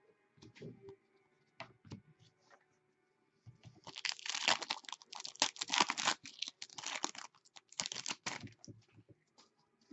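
Light handling noises, then about five seconds of tearing and crinkling from a trading-card pack wrapper being ripped open and handled.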